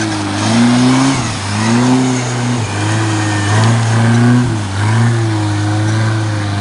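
Off-road buggy engine revving hard as it ploughs through a muddy water-filled ditch, its pitch climbing and dropping about once a second as the throttle is worked, over the rushing splash of water.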